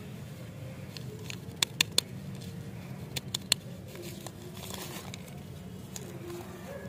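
Plastic lollipop wrapper being crinkled and torn open by hand: sharp crackles around two seconds in and again at about three and a half seconds, then a brief rustle, over a steady low hum.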